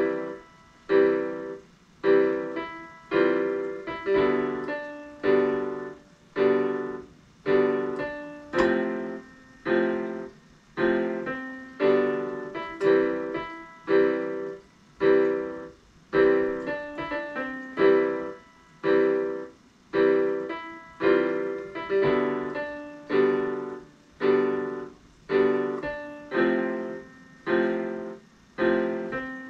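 Portable electronic keyboard on a piano voice, played slowly by a beginner: notes and chords struck about once a second, each dying away before the next.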